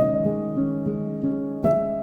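Background music: soft plucked-string notes in a repeating arpeggio under a held higher note, with a new note struck about one and a half seconds in.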